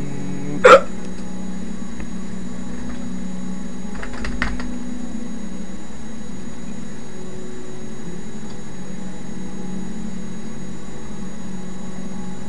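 Steady low hum picked up by a webcam microphone, with one short, loud squeak that rises quickly in pitch about a second in and a few faint clicks around four seconds in.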